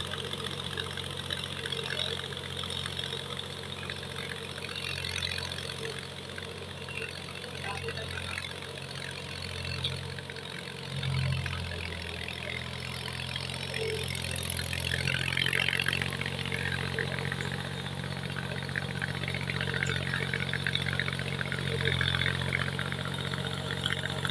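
Mahindra B275 DI tractor's diesel engine running steadily as it pulls a cultivator, with a brief swell in level about eleven seconds in.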